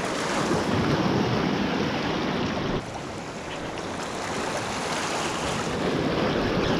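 Steady rush of wind on the microphone and small waves lapping around a wading angler. The noise drops abruptly near the middle, then slowly builds again.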